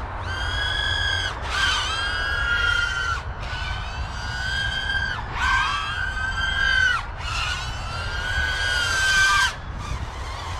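FPV racing quadcopter's brushless motors on a 6S battery whining at full throttle in about five bursts of one to two seconds, each cut off sharply. These are hard throttle snaps from full to zero, done to stress-test the ESC.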